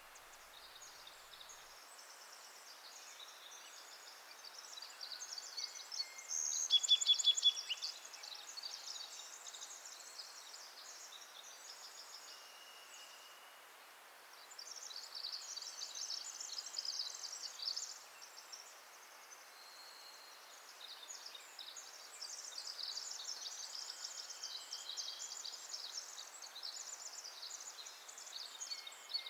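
Woodland ambience of small wild birds chirping and calling high-pitched, in clusters with short lulls. The loudest is a fast trill about seven seconds in.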